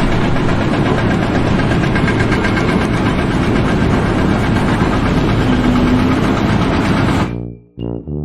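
A loud machine engine running steadily, cutting off suddenly about seven seconds in.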